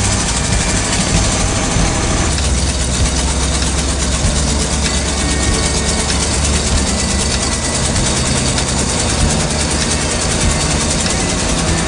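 Truck engine and road noise heard from inside the cab while driving and pulling a loaded trailer: a steady, loud drone with a strong low rumble.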